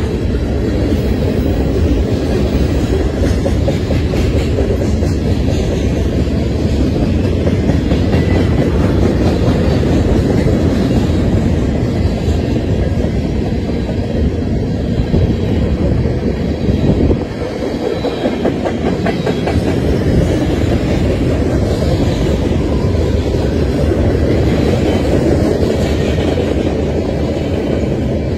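Freight train's boxcars and covered hopper cars rolling steadily past at close range, a continuous rumble of steel wheels on the rails.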